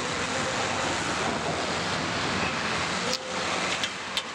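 Combine harvesters' diesel engines running together under a steady rushing noise. About three seconds in the sound dips briefly, and a few sharp clicks follow near the end.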